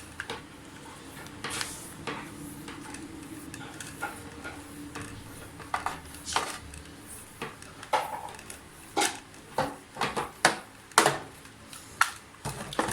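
Clicks, knocks and clatter of a vacuum cleaner's plastic cord-reel assembly being handled as its power cord is wound back onto the reel. The sharp knocks come more often in the second half.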